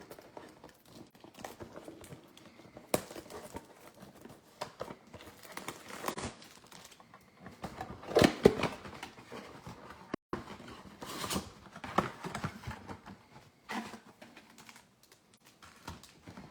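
Foil trading-card pack wrappers and cardboard crinkling, rustling and tearing as packs are handled and ripped open, with scattered light clicks and taps.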